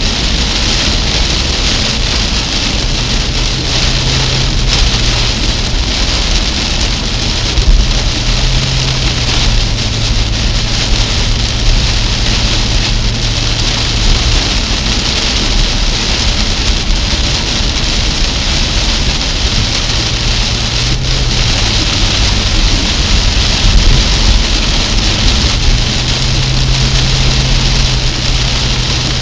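Heavy rain pelting a car's roof and windscreen, heard from inside the cabin, with tyres hissing over the wet road. Underneath runs a low engine drone whose pitch shifts up and down a few times.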